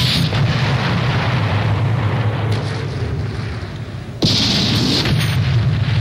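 Two explosions in a film soundtrack. The first blast has just gone off and rumbles on, and a second sudden blast comes about four seconds in and rumbles on in turn.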